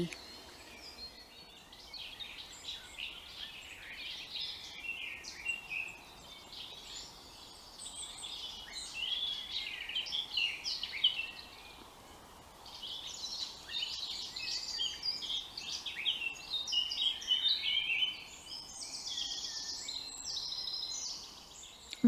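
Several woodland birds singing at once, a busy mix of short high chirps, whistles and warbling phrases over a faint outdoor hush, with a rapid high trill near the end.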